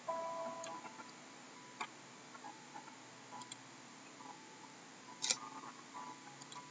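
Soft background music of sparse, gentle plucked notes, with a few light ticks and one sharper click about five seconds in.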